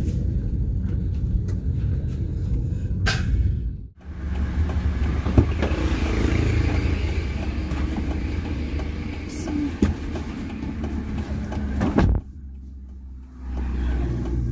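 Car running, heard from inside the cabin as it drives, with a steady low rumble. After a break, outside noise comes in through the open door with clicks and knocks as a passenger climbs into the back seat, and a sharp thud about twelve seconds in, after which the outside noise drops away.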